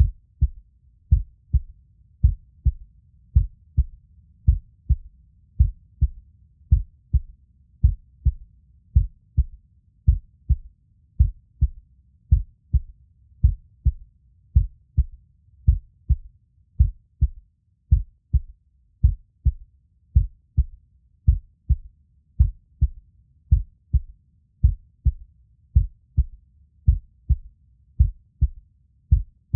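Heartbeat: a steady, even rhythm of deep double thumps (lub-dub), with a faint low rumble between the beats.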